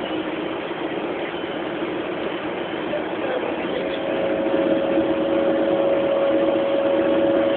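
Coach engine and road noise heard from inside the passenger cabin, growing louder about halfway through as a steady whine joins in.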